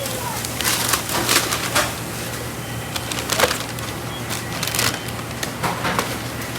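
Fast-food restaurant background: a steady low hum with scattered clatter and knocks throughout.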